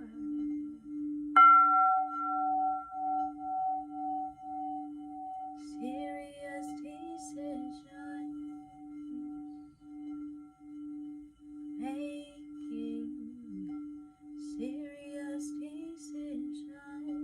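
Singing bowl played around its rim, holding a steady low tone that pulses in a slow wobble. About a second and a half in the bowl is struck once, adding a higher ring that sustains and slowly fades.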